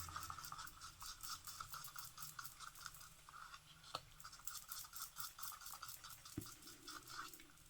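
Faint, rapid scraping of a stirring stick against a mixing cup as pigment powder is stirred into liquid resin.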